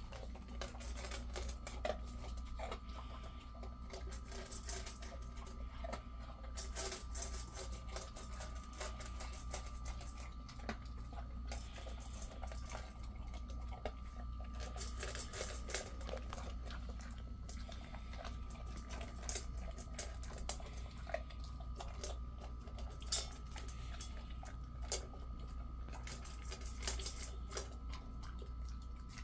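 Jindo dog eating dry kibble from a stainless steel bowl: rapid, irregular crunching and kibble clicking against the metal, with a steady hum underneath.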